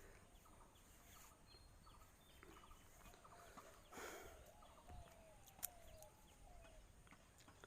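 Near silence with faint animal calls in the background: a few short wavering calls, mostly in the middle.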